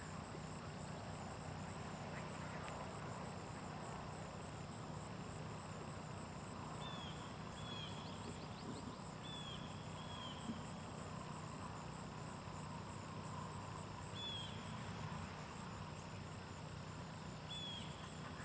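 Steady high-pitched insect chorus, with a few short high chirps, some in pairs, scattered through the middle and near the end.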